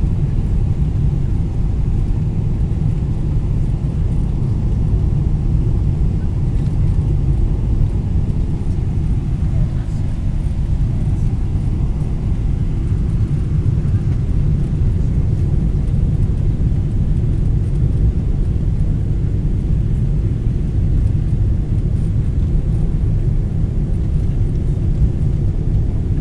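Steady low rumble inside the cabin of a Boeing 777-300ER airliner: engine and airflow noise heard from the passenger seat as the plane comes in to land.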